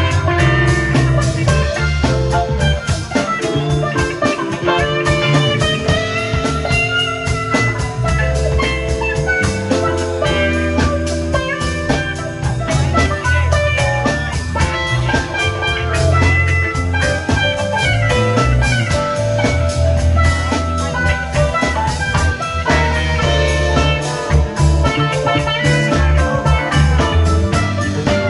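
Live rock band playing an instrumental jam: electric guitars over bass guitar, drum kit and keyboards, with a steady beat.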